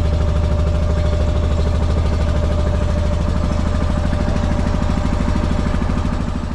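Engine of a wooden fishing boat under way, running steadily with an even, rapid low pulse.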